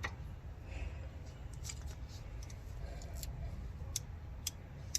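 A handful of separate light metallic clicks from hand tools being handled, a socket being picked out, over a low steady hum.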